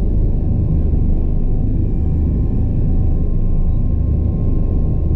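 Twin-engine Bell 429 helicopter running: a steady low rumble of rotor and engines, with a faint thin whine above it.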